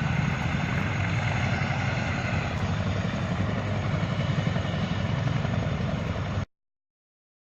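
A steady, loud rumbling noise with a hiss above it and no speech, cutting off abruptly about six and a half seconds in and leaving dead silence.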